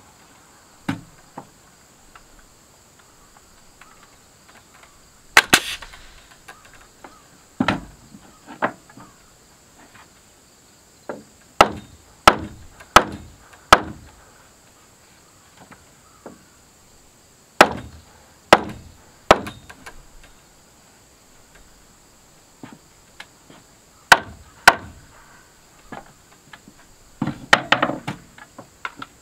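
Nails being driven into a wooden stud-wall frame: sharp strikes in groups of two to four, less than a second apart, with pauses between. Insects chirr steadily at a high pitch behind them.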